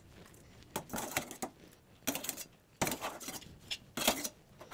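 Wire-mesh spider strainer scraping and clinking against a steel pot while soaked soya chunks are scooped out of water, in short irregular knocks.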